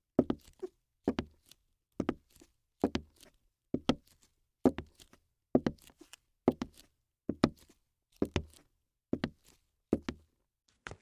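A steady run of short knocks, about one a second, each a low thud with sharp clicks on top.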